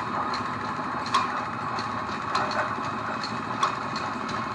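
Concrete pipe-making machinery running steadily, with a sharp metallic knock about every second and a quarter and lighter ticks between.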